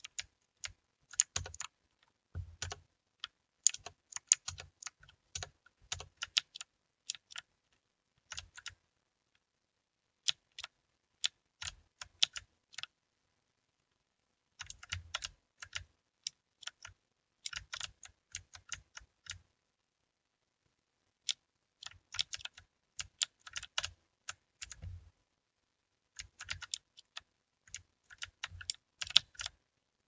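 Redragon mechanical gaming keyboard being typed on: quick runs of key clicks, broken by several pauses of one to two seconds.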